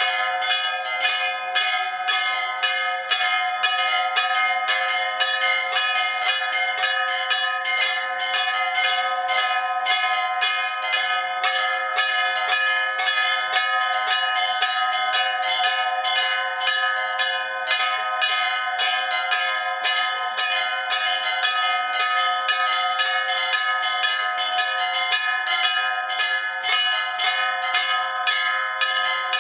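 Temple bells rung continuously, their strokes following one another quickly and evenly so that the ringing tones never die away.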